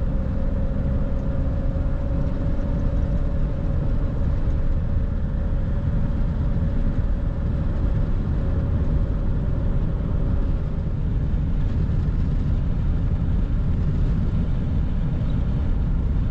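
Vehicle driving along an open road: a steady rumble of engine and road noise, with a faint steady hum that fades away about two-thirds of the way through.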